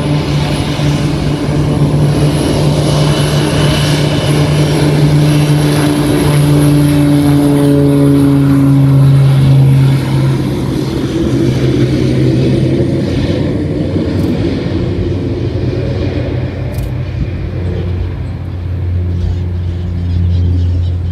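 Air Tractor agricultural plane taking off: its engine and propeller run at full power as it rolls past, and the drone's pitch slides steadily lower as it passes and climbs away. A lower steady hum comes in near the end.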